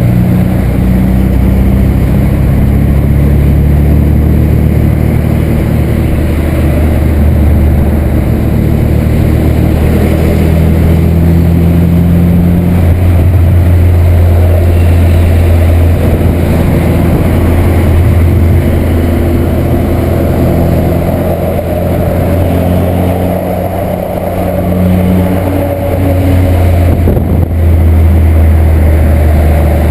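Volkswagen Santana's AP 2000 four-cylinder engine and exhaust droning steadily while the car cruises on the road, with road noise underneath. The drone dips briefly near the end, then comes back strongly.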